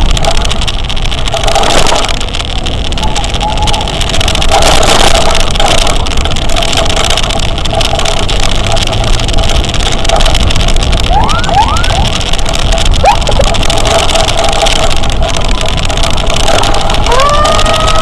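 Heavy road and wind noise from riding in traffic, with a siren's tone running underneath. About eleven seconds in there are a few short rising chirps, and near the end a siren winds up in pitch and then holds steady.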